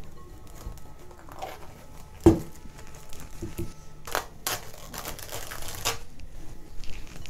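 Plastic cling film pulled from its roll, stretched over a glass bowl and cut with a knife, crinkling and tearing in bursts in the second half. There is a single sharp knock about two seconds in.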